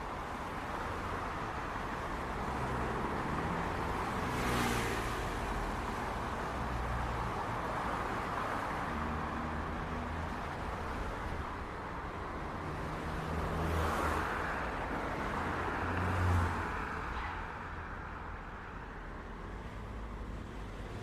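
City street traffic: a steady wash of tyre and engine noise with the low hum of idling and moving engines. A car passes close about four seconds in and another about fourteen seconds in, and a heavier low rumble swells briefly soon after the second.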